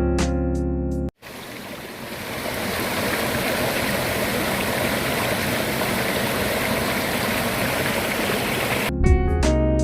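Mountain stream rushing steadily over rocks, fading in after a sudden cut from piano and guitar music; the music comes back near the end.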